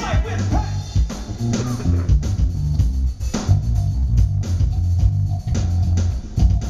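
Live rock band playing an instrumental passage without vocals: a prominent electric bass guitar line over electric guitar and a drum kit.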